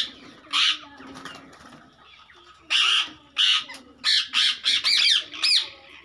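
Rose-ringed parakeets screeching during a squabble: one harsh call, then a rapid run of loud, shrill squawks from about three seconds in until near the end.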